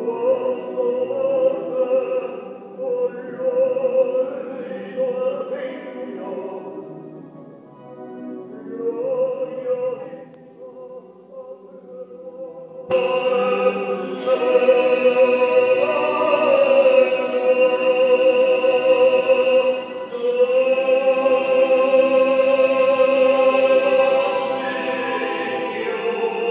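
Choir singing a slow sacred Passion song in long, sustained notes. About halfway through, the sound suddenly becomes louder and fuller.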